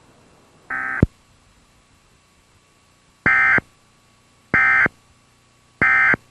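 EAS end-of-message (EOM) data bursts from the cable system's encoder/decoder: three short, identical, buzzy two-tone digital bursts about a second apart, signalling the end of the alert. A fainter, shorter burst of the same kind comes about a second in and ends in a click.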